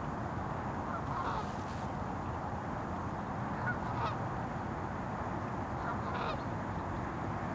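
About three short bird calls, one about a second in, one near the middle and one near the end, over a steady background noise.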